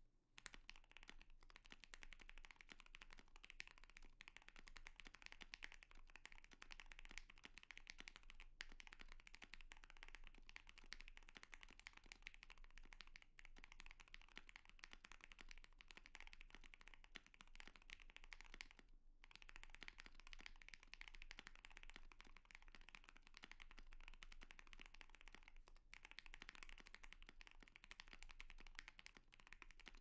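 Fast, continuous typing on a TOFU65 mechanical keyboard with Alpaca V2 linear switches, PC plate and PBT keycaps: a dense stream of key clacks, broken only by a few brief pauses.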